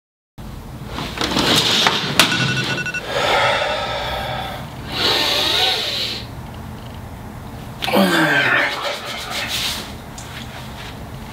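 Curtains swished open along their rail in several pulls, with a sharp click among them. About eight seconds in, a man's voice slides down in pitch in a drawn-out groan as he stretches.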